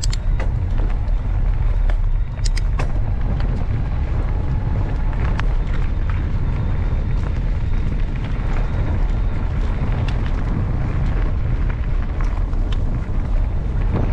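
Mountain bike rolling along a canal towpath: a steady low rumble of wind buffeting the action-camera microphone, with ride noise and scattered sharp clicks and rattles from the bike.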